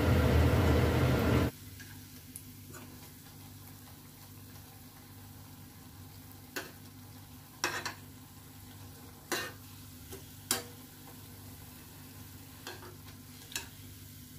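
Malpua deep-frying in refined oil in a kadai, sizzling loudly for about the first second and a half, then cutting off suddenly to a faint steady hum. About six sharp clicks of a metal spatula and ladle against the pan follow as the malpua is turned and lifted out.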